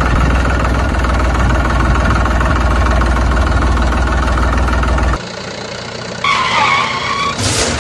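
Steady diesel tractor engine sound running at idle, laid over toy-tractor footage, which cuts off about five seconds in. It is followed by a short falling tone and a few quick sweeping noises near the end.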